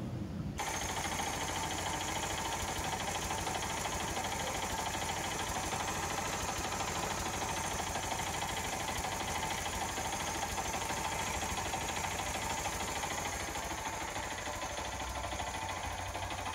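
Bajaj three-wheeler's single-cylinder four-stroke engine idling steadily on CNG (natural gas) fed through its freshly serviced gas regulator. The running starts about half a second in.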